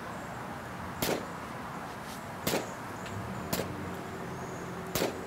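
Four pistol shots from an FK BRNO 7.5 Field Pistol, firing the 7.5 FK cartridge, fired at a steady pace, a little over a second apart.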